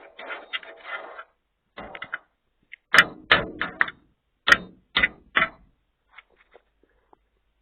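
Rustling, then a run of sharp knocks and clatter, about seven loud hits over two and a half seconds, as a dumpster is opened and searched.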